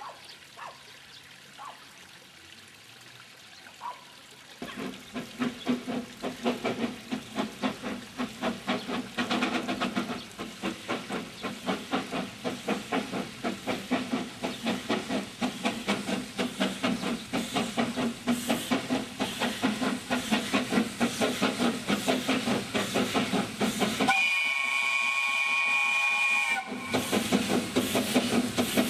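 C2 class 0-8-0 narrow-gauge steam locomotive approaching. Rhythmic exhaust chuffing starts about five seconds in and grows steadily louder. A single steam-whistle blast of about two and a half seconds sounds near the end, and then the chuffing resumes.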